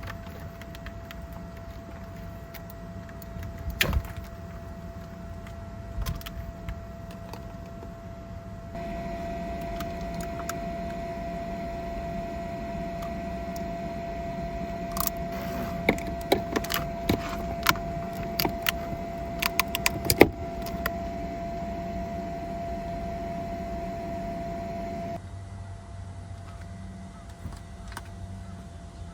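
A small electric motor spins up and runs with a steady whine. For a long stretch in the middle it runs louder with a rougher sound, with scattered clicks and knocks, then drops back to a quieter whine near the end.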